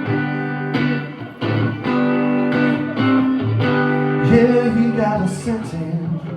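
Guitar music: plucked and strummed chords at a moderate pace, with a short sung or hummed phrase near the end.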